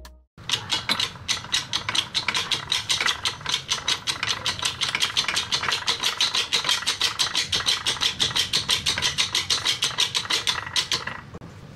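Hydraulic press working a press brake punch down into a V-die to bend a steel strip, with a rapid, even clicking at about seven a second that stops shortly before the end.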